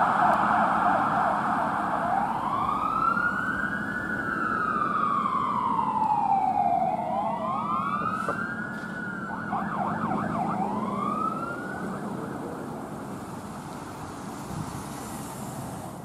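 2023 Sutphen Monarch ladder truck's electronic siren: a fast yelp, then a slow wail rising and falling, another short burst of yelp and a last rise, fading as the truck drives away. The siren stops near the end, leaving traffic noise.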